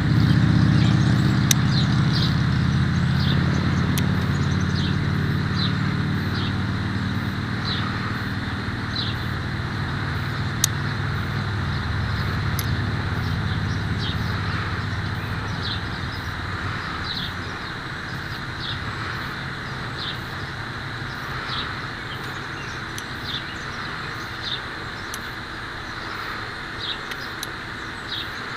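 Outdoor ambience: a vehicle engine rumbles and fades away over the first half, under a steady hiss. A short high chirp repeats about once a second throughout.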